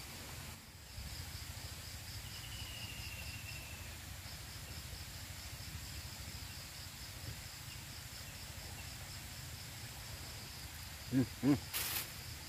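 An insect chirping steadily in a string of quick, high-pitched pulses over a low background hiss. Near the end there are two short vocal exclamations and a brief sharp noise.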